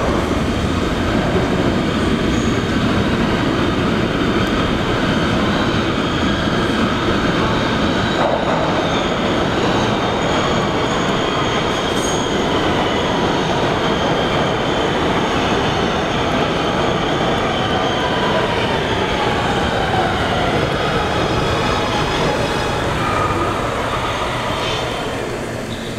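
Kawasaki R211A subway train moving through an underground station: steady steel-wheel rumble on the rails, with high wheel squeals that come and go, one sliding down in pitch about two-thirds of the way through.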